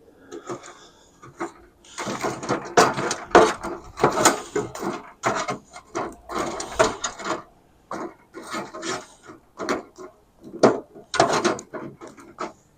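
Irregular knocks, scrapes and rubbing of things being handled and moved about, in quick uneven runs.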